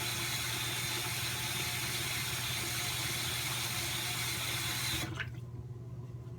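Sink tap running steadily, then turned off about five seconds in with a short rising squeak.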